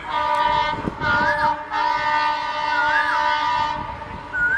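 Alco WDG3A diesel locomotive's horn sounding in three blasts: two short ones, then a longer one of about two seconds that stops near the end. A bird's rising-and-falling whistled call repeats about every second and a half over it.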